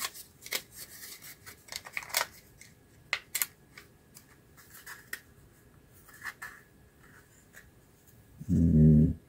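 Hard polystyrene model-kit body halves handled, pressed and twisted together by hand: a run of sharp plastic clicks and scrapes, thinning out after the first few seconds, as warped parts are forced to line up. A short hum of voice near the end.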